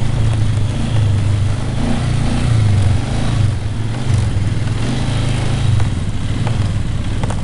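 ATV engine running close by at trail speed, a steady low note that swells and eases every second or so with the throttle.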